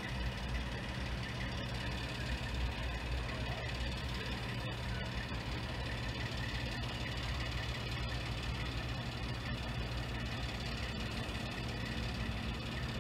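Mobile crane's diesel engine running steadily with a low, even hum.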